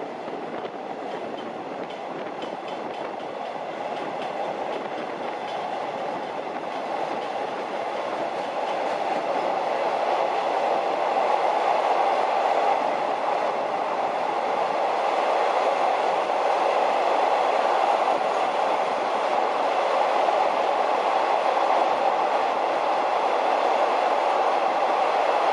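Long-distance train running along the rails, a steady rolling rumble that grows louder over the first dozen seconds and then holds steady.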